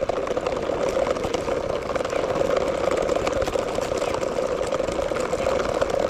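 Small electric motor of a toy RC car running steadily, a constant whir with a fast, fine rattle.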